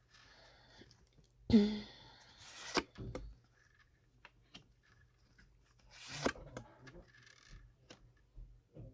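Tarot cards being shuffled and handled in a small room: two rustling, scraping passages, a louder one about a second and a half in and a weaker one about six seconds in, with light clicks of cards between.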